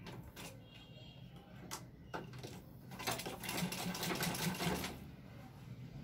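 Old black manual sewing machine stitching a folded hem in cotton sheeting: a few separate clicks as the fabric and hand wheel are handled, then, about halfway in, a run of rapid stitching for roughly two seconds that stops about a second before the end.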